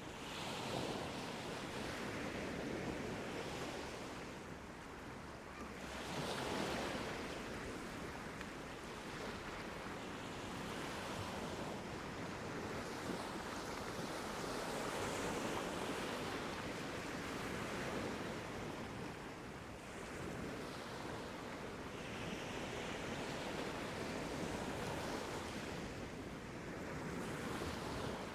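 Sea waves washing onto a beach, the surf swelling and easing every few seconds, with some wind on the microphone.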